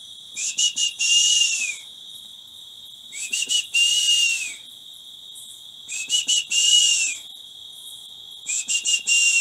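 A high whistling call repeats about every two and a half seconds, each one a few short chirps followed by a longer note that drops in pitch at its end, over a steady high trill.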